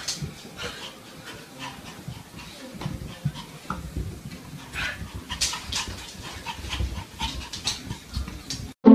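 A dog breathing heavily in quick, irregular noisy breaths, cut off abruptly shortly before the end.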